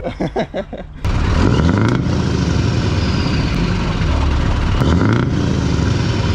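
Lorry engine running close to its exhaust pipe, starting abruptly about a second in and revved up and back down twice.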